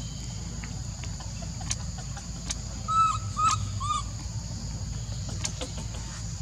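Three short animal calls, each rising then falling, about half a second apart, over a steady high insect drone.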